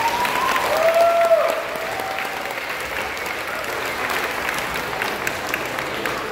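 Audience applauding, a dense patter of clapping that peaks about a second in, with a voice or two calling out over it near the start.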